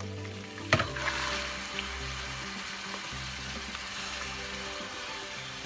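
Raw chicken pieces tipped into hot oil with browned garlic and ginger paste in a nonstick pot: a sharp knock just under a second in, then sizzling and frying as a wooden spoon stirs them.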